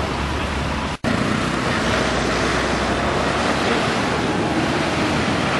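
Steady rushing noise of wind buffeting the microphone, mixed with road traffic, broken by a sudden split-second dropout about a second in.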